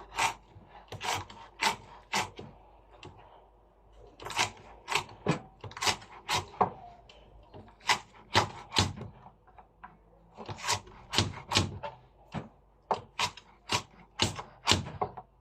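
A kitchen knife chopping onion pieces on a cutting board: a run of sharp chops, about two a second, broken by a couple of short pauses.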